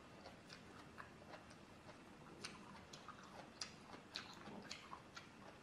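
Faint eating sounds: irregular soft clicks of chewing and handling food with a fork, a few every second.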